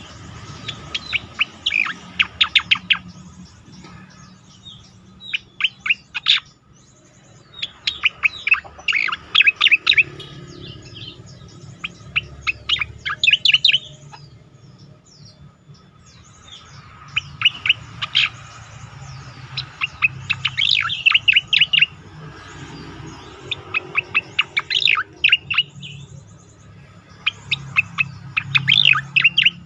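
Striated grassbird singing in repeated bouts of rapid, sharp chirping notes, each bout two to three seconds long with short pauses between, about eight bouts in all.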